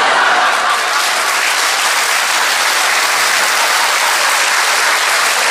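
Live audience applauding steadily after a comedian's punchline.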